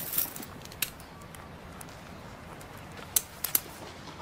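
A few short, sharp clicks and knocks with light rustling over a faint steady hiss: the handling noises of a person moving about and bending to dress. One click comes at the start, another just under a second in, and three come close together near the end.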